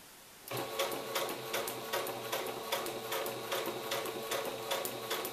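Singer electric sewing machine starting up about half a second in and running steadily, stitching fabric: a motor hum with a regular clicking of the needle mechanism, about two to three clicks a second.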